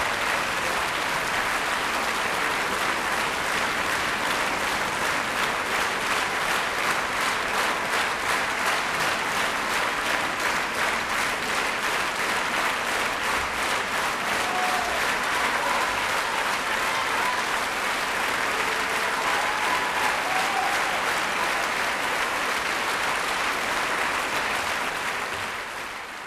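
Concert hall audience applauding steadily after an opera aria, with a few faint shouts in the crowd; the applause dies away at the very end.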